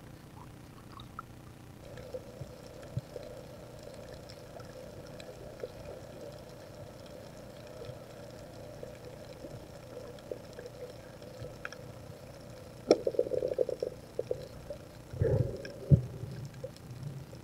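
Water sounds heard underwater through a camera's waterproof housing: a faint steady hum, then a spell of crackling, bubbling water about thirteen seconds in, and two dull thumps near the end.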